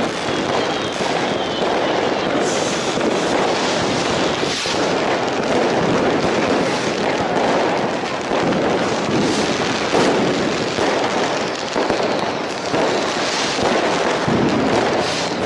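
Fireworks barrage: a dense, unbroken mix of many bangs and crackles, with a few sharper cracks standing out now and then.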